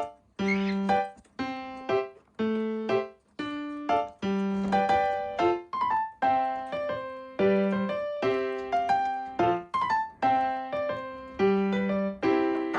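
Background piano music: a light melody of struck notes at an even pace, each note ringing and fading.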